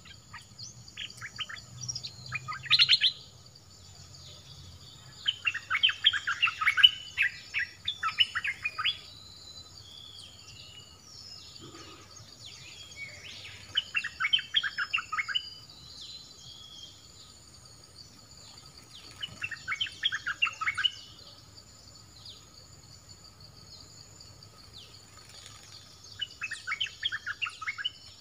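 Caged bulbul (the southern Thai 'nok dok taeng') singing in four bursts of quick chattering notes a few seconds apart, over a steady high insect drone.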